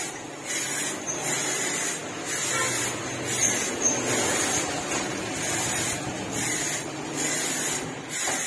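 Aerosol spray can with a clip-on trigger handle hissing in a string of short bursts, each about a second long with brief pauses, as clear top coat is sprayed onto a helmet.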